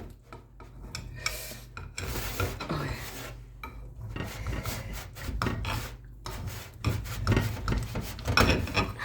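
Knife sawing back and forth through set jellied meat (kholodets), rasping and scraping against the dish in repeated uneven strokes. The firm, set sinews make it hard to cut.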